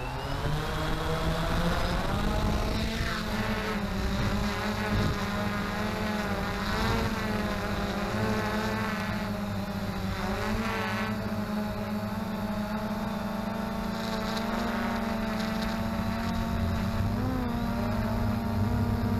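XK Detect X380 quadcopter's motors and propellers whining steadily in flight, the pitch wavering up and down now and then as the throttle changes.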